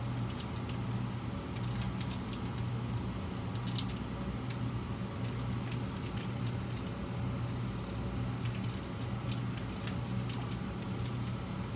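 A steady low hum, with scattered faint clicks and plastic crinkling as pickled rakkyo shallots are squeezed from a plastic pouch onto a plate.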